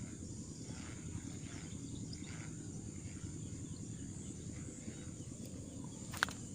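Insects droning steadily over a low rumbling background, with a sharp click about six seconds in.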